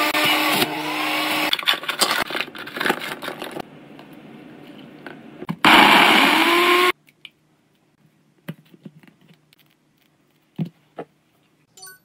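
Electric juicer motor running as fruit is pushed down its chute, followed by knocks and clatter of handling. About six seconds in, a Ninja personal blender runs loudly with a rising whine for about a second and cuts off suddenly. Scattered light clicks and taps follow.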